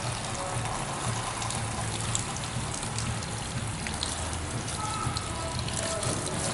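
Water spraying steadily from a handheld shampoo-basin sprayer onto wet hair and splashing into the sink.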